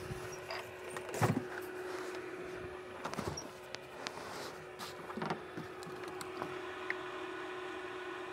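A steady machine hum, with occasional knocks and clicks of gear being handled, about one, three and five seconds in.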